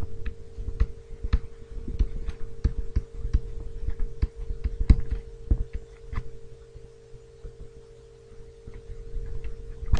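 Handwriting with a pen: irregular taps and clicks of the pen tip on the writing surface, thinning out after about six seconds, over a steady electrical hum.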